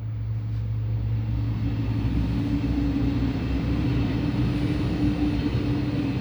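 Train passing close by, a loud steady rumble with a low hum running under it.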